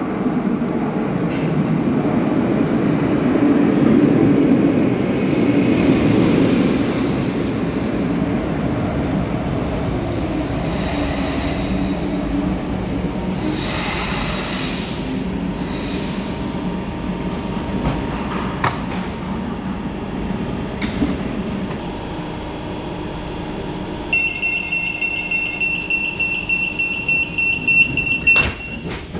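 Renfe Series 446 electric commuter train pulling in and slowing to a stop, with a hiss of air about halfway through. Later the door-closing warning beeps rapidly for about four seconds, and the doors shut with a sharp bang near the end.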